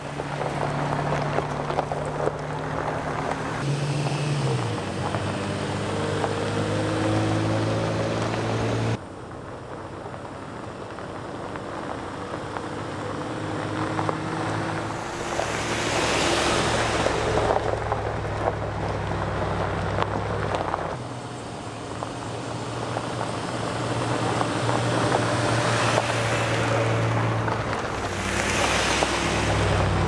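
Pickup trucks and a Jeep driving past on a gravel road, engines running steadily under the crunch and rumble of tyres on gravel. The noise swells twice as vehicles come close, about halfway through and again near the end.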